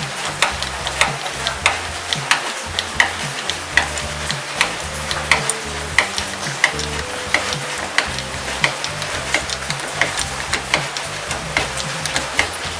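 Background music with a steady beat: a sharp tick about every two-thirds of a second over a low bass line.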